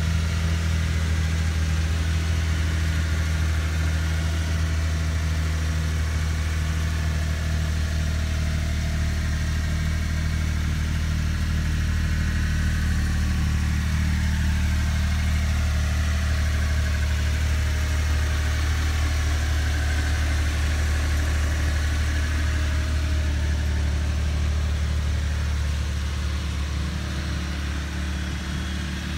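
Mitsubishi Minicab kei truck engine idling steadily.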